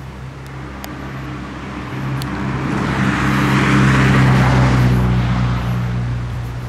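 A car passing by on a road: engine hum and tyre noise swell, loudest about four seconds in, then fade away.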